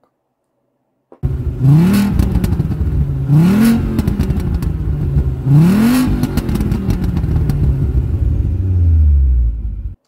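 A car engine revving three times, each rev a quick rise in pitch, starting about a second in, then dropping to a low rumble near the end.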